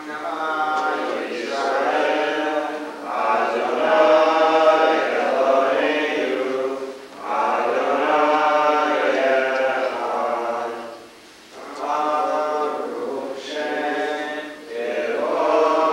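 A prayer chanted in unison by a group of voices, in sung phrases three to four seconds long with short breaks between them.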